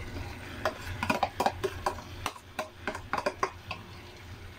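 Quick, irregular clicks and taps of a plastic container knocking against a frying pan as cooked egg is tipped out into it. The taps bunch from about a second in to near the end, over a low steady hum.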